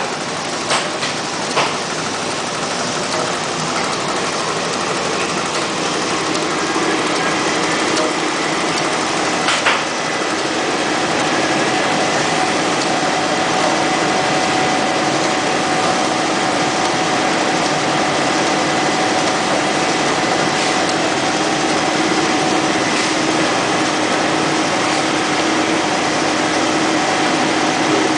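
Label printing press running steadily as the label web feeds through its rollers and onto the rewind roll. It makes a continuous mechanical noise, with a few sharp clicks in the first ten seconds and a steady whine settling in from about a third of the way in.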